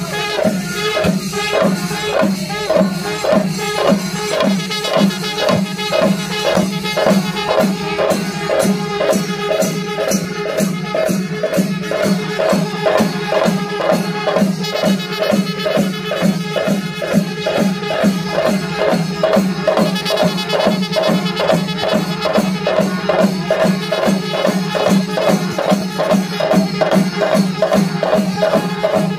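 Traditional percussion ensemble of drums and cymbals playing a steady, even rhythm of about three strokes a second over a held low tone.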